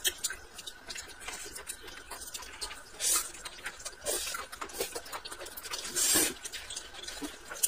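A person slurping cold vermicelli noodles in three short hissy slurps, about a second apart and then two seconds later, with small wet eating clicks and smacks between them.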